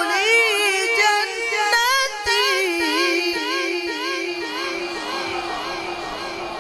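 A man's solo voice in melodic Quran recitation (tilawat): one long, ornamented phrase with the pitch winding up and down, amplified through a microphone. The phrase ends about four seconds in and trails off into echo.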